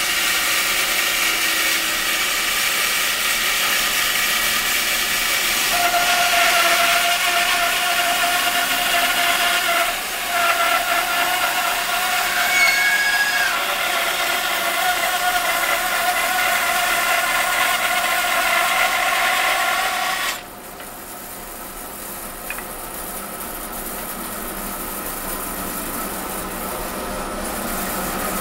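Bandsaw resawing a thick board lengthwise, the blade cutting steadily through the wood with a constant whine. About twenty seconds in the cutting sound stops abruptly, leaving a quieter steady running sound.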